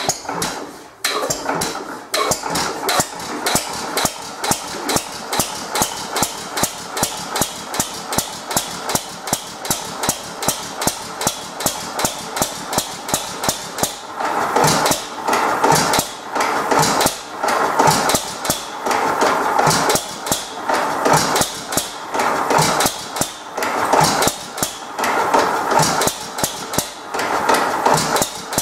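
Single-cylinder 1914 Economy Model D hit-and-miss gas engine running with a steady clacking beat about twice a second. The beat grows louder and fuller about halfway through.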